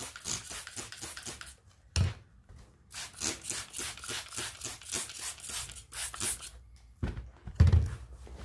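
Trigger spray bottle squirting soapy water onto a tire bead in quick repeated squirts, about four a second, in two runs. A dull thump comes about two seconds in, and two heavier thumps come near the end.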